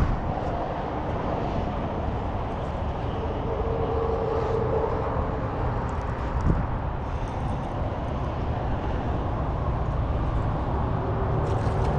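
Steady outdoor background noise with a low rumble: road traffic and wind on the microphone. A short tick about six and a half seconds in.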